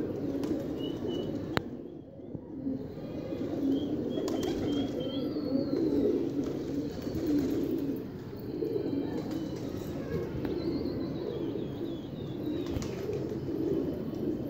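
Domestic pigeons cooing almost without pause, several voices overlapping, with short high chirps of birds heard now and then above them.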